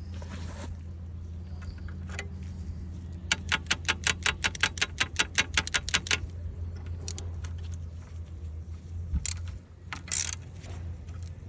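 Ratchet wrench clicking in a fast, even run of about nine clicks a second for roughly three seconds, as it is swung back and forth while working loose a brake caliper bleeder screw. A couple of short scuffing knocks come near the end.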